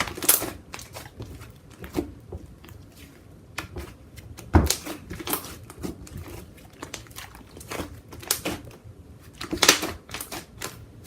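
Soft butter slime being squished and pressed by hand, with irregular crisp bubble pops and clicks.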